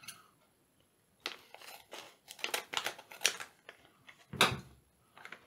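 Scattered crinkles and snips as a plastic LEGO minifigure blind bag is cut open with scissors and handled, the loudest about four and a half seconds in.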